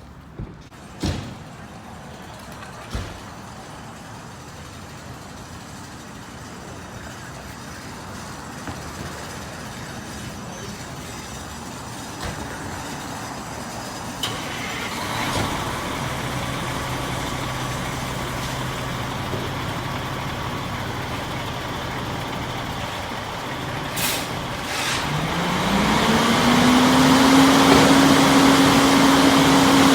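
Spartan Gladiator fire engine's diesel engine running, with a short sharp hiss of air brakes released near the end. The engine then revs up and holds a steady pitch as the truck pulls out on a call.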